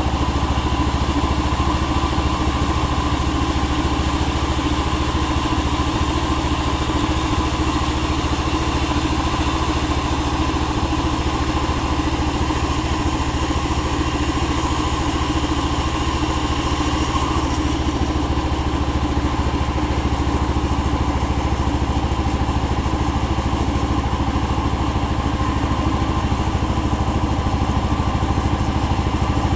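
Chainsaw engine running steadily at a constant pitch.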